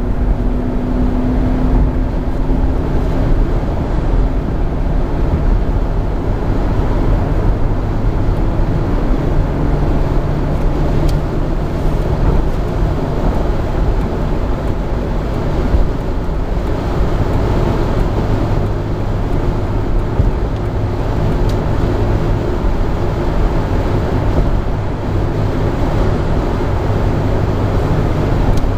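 Cabin noise of a Jeep Grand Cherokee at highway speed: a steady rush of tyre and wind noise over a low drivetrain hum.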